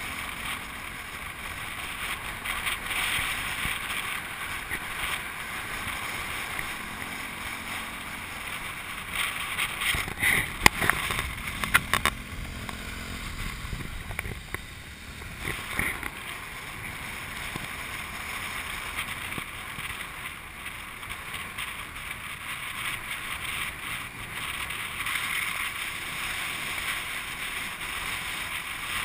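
Wind and road noise from riding on a motorbike taxi, with the motorbike's engine running underneath and wind buffeting the microphone. A few sharp knocks come about ten to twelve seconds in.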